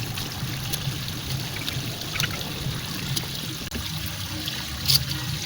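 Water running steadily, as in a stream, with scattered light clicks and one sharper click near the end.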